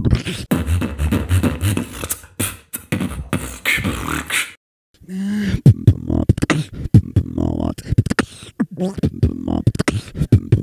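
Human beatboxing into a handheld microphone: fast kick and snare clicks over a held, low bass hum. It stops dead for about half a second midway, then picks up again.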